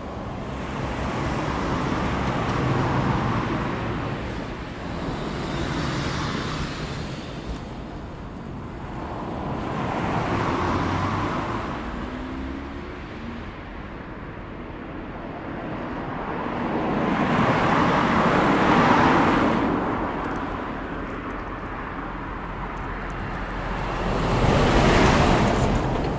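Highway traffic: vehicles passing by one after another, each a swell of tyre and engine noise that rises and fades over a few seconds. There are about five passes over a steady background rumble.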